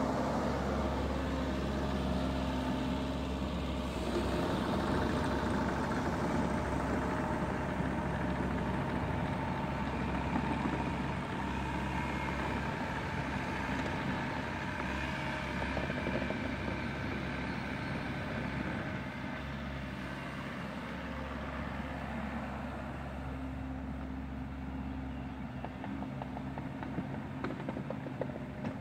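Bobcat E42 compact excavator's diesel engine running steadily as the machine works, a little fainter in the last third as it moves farther off.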